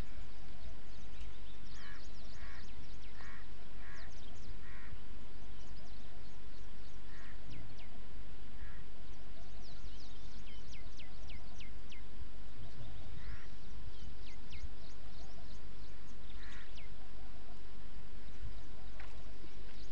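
Birds calling over a steady low rumble. Near the start comes a run of five short calls about half a second apart, then scattered single calls and thin, high, quick downward chirps.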